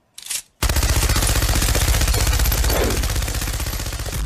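Machine-gun fire sound effect: a short burst of noise, then sustained rapid automatic fire starting just over half a second in and continuing without pause.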